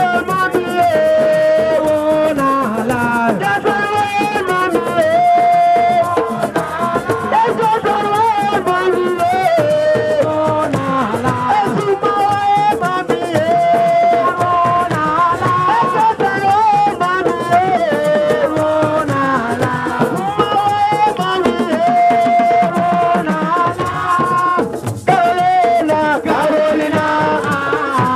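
Music: a dense instrumental passage with a rattle-like shaker and drums keeping a steady beat under bright melodic lines.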